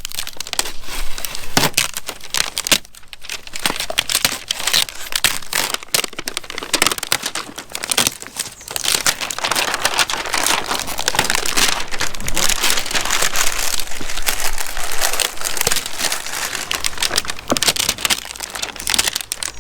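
Plastic wrapping of an LOL Surprise toy being pulled off and crumpled by hand: a dense, continuous crinkling and crackling, with a short lull about three seconds in.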